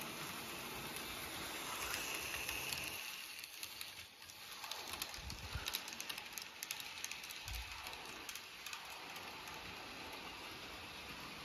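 N gauge model train running past on its track: a steady light hiss, with a run of quick small clicks and rattles from the wheels and cars about four to nine seconds in as the train goes by close up.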